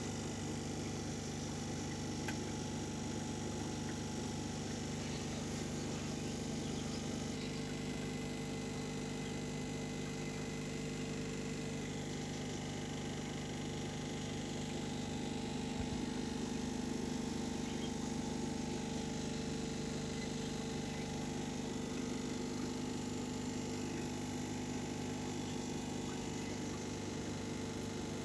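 Steady mechanical hum of an aquarium pump running, a few fixed low tones over a faint hiss; the tone shifts slightly about seven seconds in.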